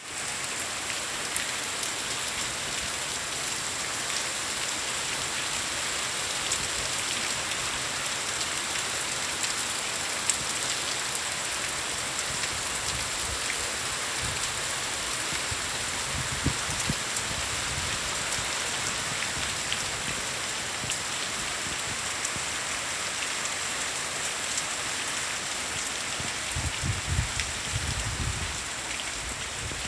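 Steady rain falling, an even hiss with scattered individual drop ticks. A few low rumbles come through midway and again near the end.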